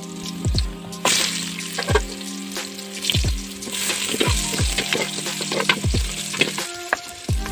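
Garlic, onion and ginger sizzling as they sauté in hot oil in a metal pot, the sizzle growing stronger about a second in.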